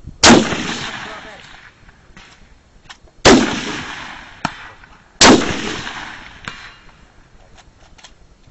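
Three big-bore rifle shots, about three and then two seconds apart. Each is a sharp crack followed by a long rolling echo that dies away over a second or more, with a fainter sharp crack between the second and third.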